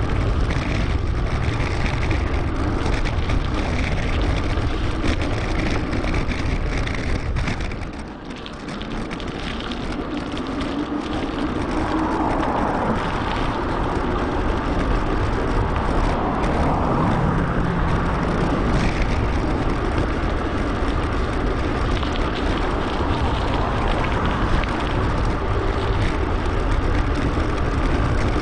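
Wind rushing over a GoPro action camera's microphone during a bicycle ride: a steady noise that is heaviest in the low end and eases briefly about eight seconds in.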